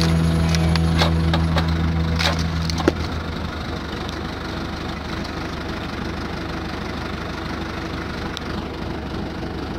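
Wood cracking and splintering as a log is forced apart on a tractor-driven hydraulic log splitter, over the Zetor 6011 tractor's diesel engine working under the hydraulic load. A final loud crack comes about three seconds in, as the log gives way; after that the engine runs on more lightly.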